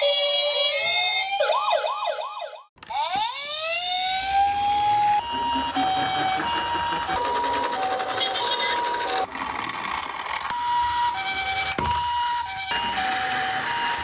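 Swooping, warbling electronic tones cut off abruptly about three seconds in. Then a toy ambulance's electronic siren winds up and settles into the Japanese two-tone 'pee-po' ambulance siren, switching back and forth between a higher and a lower pitch. A low rumble runs under it as the toy rolls down the wooden slope.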